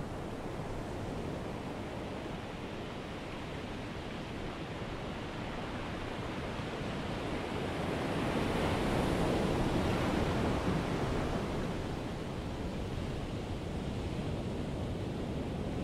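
Ocean surf: a steady wash of waves that swells as a wave breaks about halfway through, then eases back.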